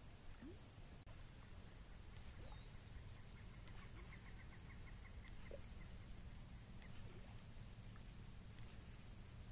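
Faint outdoor morning ambience: a steady high-pitched insect chorus, with a faint bird call about two seconds in, a short whistle followed by a quick run of ticks.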